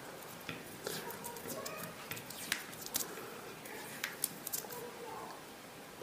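Black insulating tape being pulled off the roll and wrapped around a wire joint: quiet peeling and crackling with a few short clicks.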